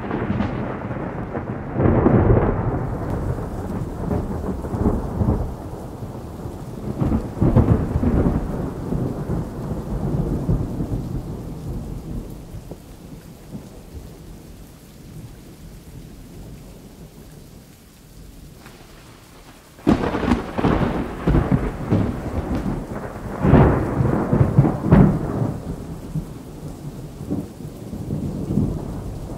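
Thunder rolling in long, low rumbles that swell and die away; about twenty seconds in, a sudden loud clap sets off another long roll.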